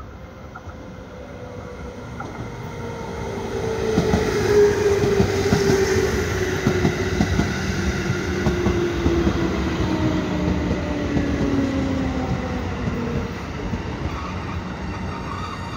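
213 series electric multiple-unit train pulling into a station and passing close by, its wheels clicking over the rail joints over a steady rumble. A whine falls steadily in pitch as the train slows to stop. The sound is loudest a few seconds in as the cars go past.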